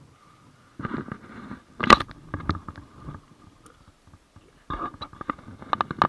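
Close handling noise as a spoon is wiped with kitchen roll and cutlery is handled: rustling and scraping with sharp clicks, in two spells starting about a second in and again near the end, with the loudest click about two seconds in.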